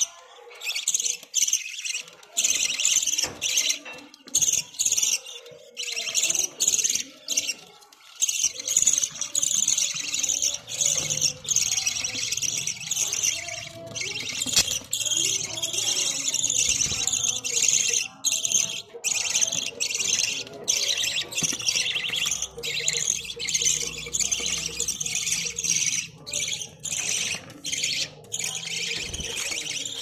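Budgerigars chattering and warbling, a continuous run of quick high-pitched chirps and twitters with brief pauses.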